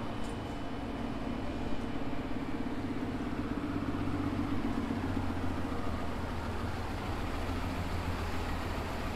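City bus driving slowly through a bus terminal and turning, its engine running with a steady low drone that swells a little in the middle as the bus comes closer.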